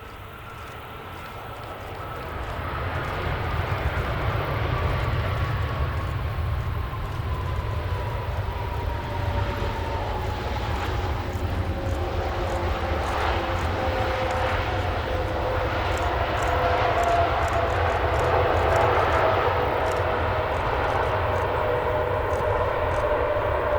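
Airbus A340-300 jet airliner arriving, its four CFM56 turbofans growing louder over the first few seconds and then staying loud. A low rumble runs under a whining engine tone that slowly glides down in pitch as the aircraft passes.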